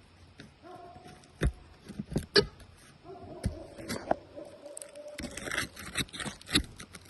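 Scattered sharp knocks and scrapes of hand tools working on asphalt roof shingles, growing busier near the end, with a faint steady tone in the middle.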